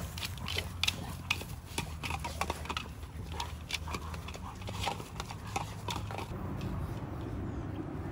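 Several Labrador retrievers playing with hard plastic balls: an irregular run of clicks and knocks that thins out about six seconds in, over a steady low hum.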